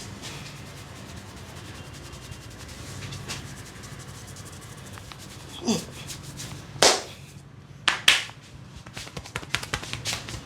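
Hands rubbing and working through hair and scalp in a vigorous head massage, then a few loud, sharp snaps about six to eight seconds in. A quick run of slaps or taps starts near the end.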